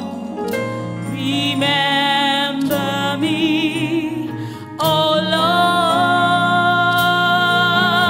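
Woman singing a gospel worship song live into a handheld microphone, with instrumental backing under her. Her phrases carry a wide vibrato, and from about five seconds in she holds one long note.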